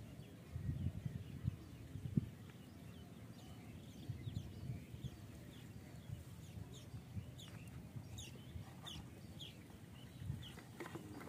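Birds calling in the background: a scatter of short, high, falling chirps, with a few soft low thumps in the first couple of seconds.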